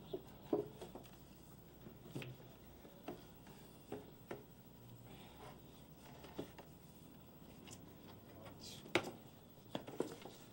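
Faint, irregular knocks and taps of a sign board and wooden stepladder being handled as the sign is set against a wall, the sharpest knock about nine seconds in.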